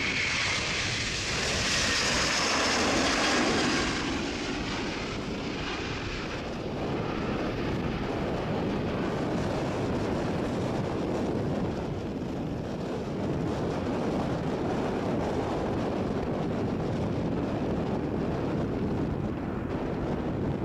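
A Delta Airbus A330-300's two Pratt & Whitney PW4000 turbofans at takeoff thrust as the jet lifts off. For the first four seconds a high whine rides over the noise; after that a steady, lower engine roar continues as the jet climbs away.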